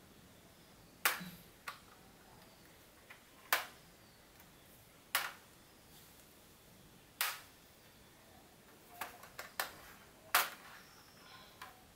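Plastic snap clips of an AZOM Exigo v4 laptop's bottom cover popping loose one after another as the cover is pried off by hand: sharp clicks every second or two, with several in quick succession about nine seconds in.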